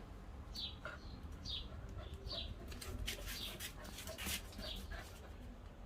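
A small dog whining in short, high, falling whistles, about one a second, with some rustling in between.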